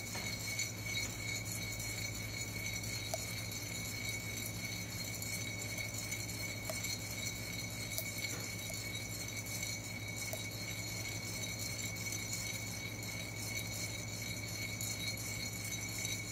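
Coffee beans rattling as they are swirled in a ceramic hand roaster over a portable gas burner, with a few scattered sharp pops: the beans are at first crack. A steady burner hiss underneath.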